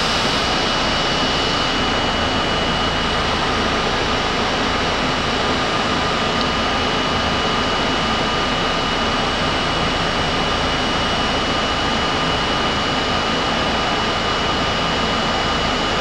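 R32 subway car standing with its doors open, its onboard equipment running in a steady loud whir with two constant high-pitched whines.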